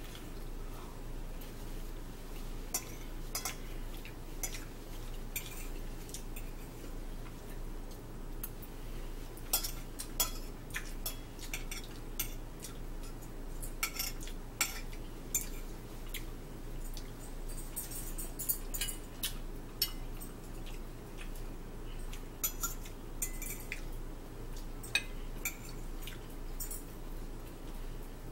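Metal forks clinking and scraping against ceramic dinner plates in scattered, irregular clicks, over a steady low hum.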